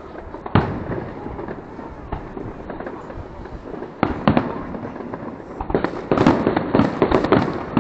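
New Year fireworks salute going off: a few separate bangs in the first half, then a dense run of rapid bangs and crackles over the last two seconds.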